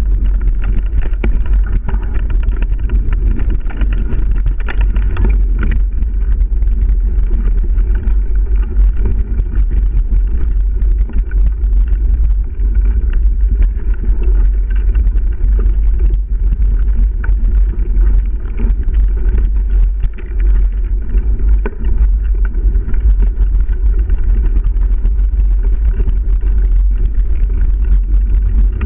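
Mountain bike ridden fast along a dirt singletrack, recorded on a GoPro: a loud, constant rumble of wind buffeting the microphone, with tyre noise and frequent small clicks and rattles from the bike.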